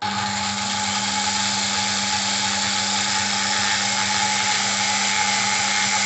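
Black & Decker 480 W electric drill starting abruptly and running steadily, spinning a pink grinding stone that is pressed against the end of a metal fishing-reel handle arm to grind it down. A constant motor hum sits under the grinding noise.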